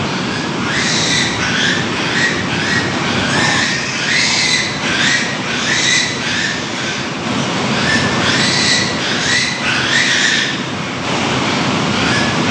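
Piglets squealing over and over in short high calls, over a steady hissing background; the squeals stop about eleven seconds in.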